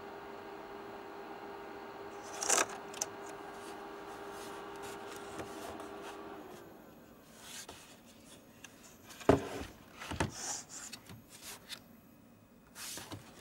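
A small motor humming steadily with several overtones, then winding down in pitch and stopping about six seconds in. Scattered clicks, knocks and scraping follow, the loudest knock about nine seconds in.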